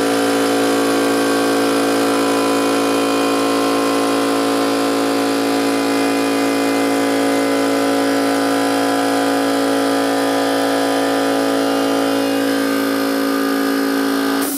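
DeWalt Emglo portable air compressor running steadily on test, its formerly seized pump working again after the repair, then stopping abruptly at the end.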